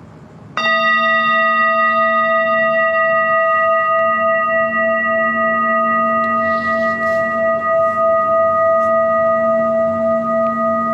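Singing bowl struck once about half a second in, then ringing on with a low hum and several higher overtones that slowly fade.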